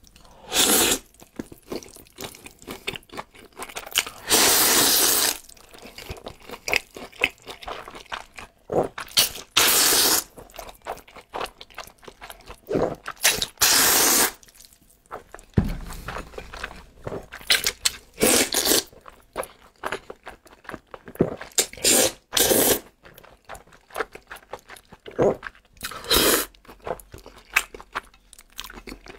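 Close-miked eating: several long slurps of noodles in black bean sauce, the longest about four seconds in, between wet chewing and lip-smacking clicks.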